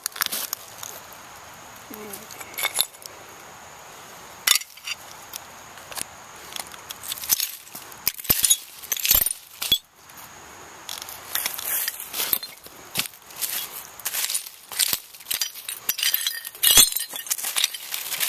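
Broken glass shards clinking and crunching amid dry leaves: a run of irregular sharp clinks.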